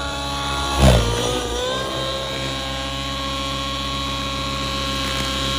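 Nitro-fueled RC helicopter's glow engine and rotors running in aerobatic flight with a steady buzzing drone. About a second in there is a brief loud surge, and then the pitch drops and settles steady.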